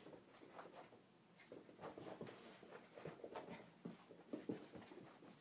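Dog and cat scuffling while they play-fight: a faint, irregular patter of paws and claws with small knocks, busiest from about two seconds in.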